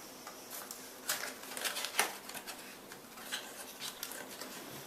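Hands opening a hand warmer's retail packaging: plastic and cardboard rustling with irregular small clicks, the sharpest about a second and two seconds in.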